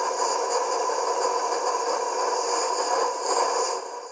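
Compressed air from a workshop airline hissing steadily through a plastic pipe pushed down the spark plug hole into the cylinder, blowing out aluminium swarf left by the thread tap.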